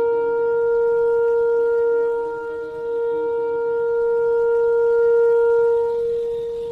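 Shofar (ram's horn) sounding one long steady blast, held on a single note and fading out near the end.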